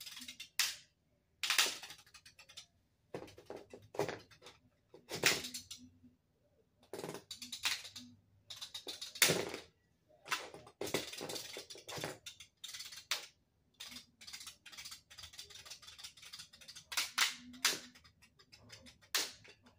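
Two Lego spinning tops clashing: sharp plastic clacks at irregular intervals, some in quick rattling runs.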